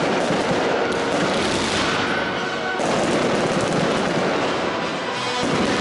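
Aerial fireworks bursting in quick succession: a dense, continuous run of bangs and crackle.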